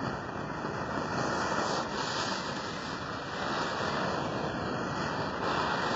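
Small ground firework jetting sparks, making a steady rushing hiss that starts right at the beginning.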